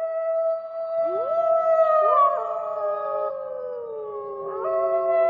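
Several canines howling together in chorus, starting abruptly out of silence. Long overlapping howls are held, with new voices sliding up in pitch about one and two seconds in, and the held howls sink slowly in pitch.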